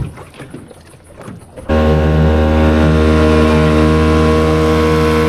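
Boat engine running at one steady pitch, cutting in abruptly a little under two seconds in, after a short quiet stretch.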